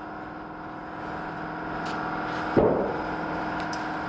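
An engine runs steadily under the noise of the fire. About two and a half seconds in there is a single loud dull bang from the burning firehouse.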